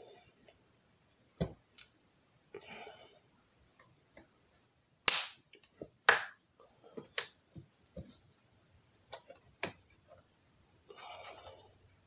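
Snap-fit clips of a Dell G15 5515 laptop's bottom cover clicking loose as a plastic pry tool works along the seam. The sharp clicks and snaps are irregular, the loudest two about five and six seconds in.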